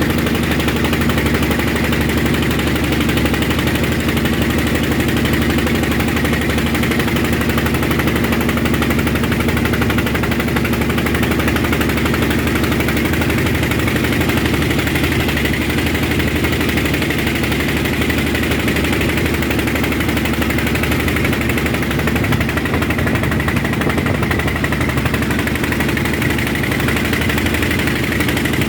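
Ferry's engine running steadily with an even, unchanging pitch.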